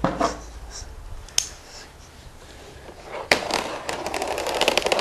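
Utility knife cutting open plastic packaging on a cardboard tray. A sharp click comes about a second and a half in and another about three seconds in, then a fast run of scratchy crackling.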